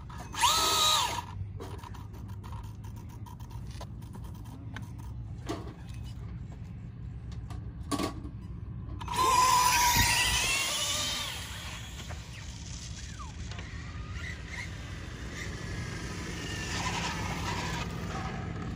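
RC drag cars' electric motors whining at full throttle as they launch down asphalt about nine seconds in, the pitch rising and bending, with tire squeal. A short motor blip comes near the start, and a lower motor hum toward the end as the cars are driven back.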